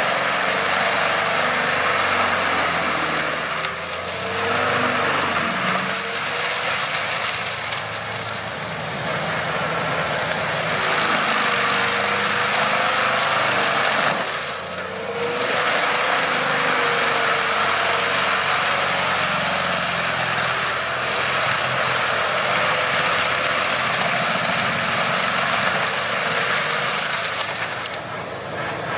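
Tractor-driven AHWI forestry mulcher running, its spinning toothed drum grinding brush and wood into chips, over the tractor's engine working under load. A wavering whine rides on the dense grinding noise, which dips briefly a few times.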